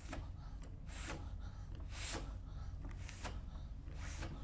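Rescue breaths into an infant resuscitation manikin, the mouth sealed over its mouth and nose: four short breath sounds about a second apart.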